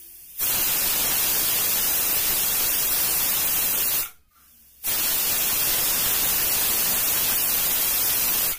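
Pressure cooker whistling twice: steam hissing out steadily under the weight valve for a few seconds each time, with a short silent gap between the two. This is the cooker venting at full pressure, the whistles counted as the cooking time.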